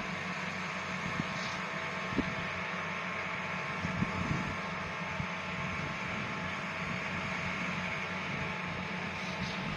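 Engine of a rice harvesting machine running steadily, with a few short low knocks about one, two and four seconds in.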